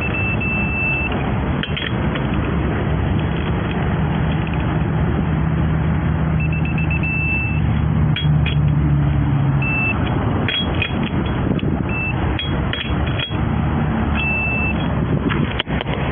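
Five rounds of high electronic beeping from a digital torque wrench as the lug nuts are torqued down: quick beeps run into a held tone as each nut reaches the set torque. Under it runs a steady low vehicle rumble, with scattered metallic clicks.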